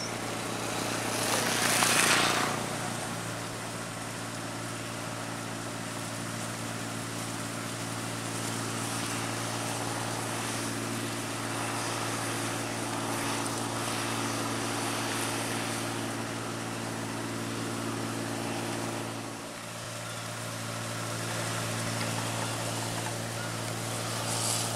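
Rice combine harvester running steadily as it cuts and threshes ripe rice, its engine and machinery giving a steady drone. A loud rushing noise swells and fades about two seconds in.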